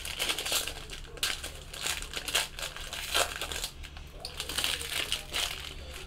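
Crinkling of a plastic trading-card pack wrapper being pulled open and peeled off by hand, in a run of uneven rustles and crackles.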